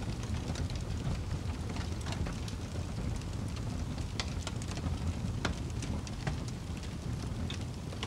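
Fireplace fire crackling: a steady low rumble of burning with irregular sharp pops and snaps scattered throughout.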